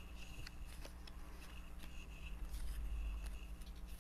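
Faint rustling and light handling of paper pieces on a plastic-covered craft table, with a few small ticks and a soft low bump of table noise about three quarters of the way through.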